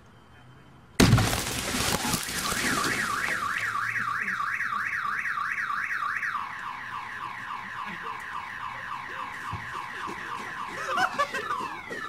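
A sudden loud explosion about a second in as the snowman bomb goes off, then a car alarm set off by the blast: a warbling tone rising and falling a few times a second, which switches to a different pattern about six seconds in.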